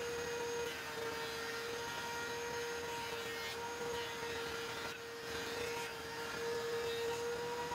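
Benchtop thickness planer running with a steady whine while hardwood strips are fed through it.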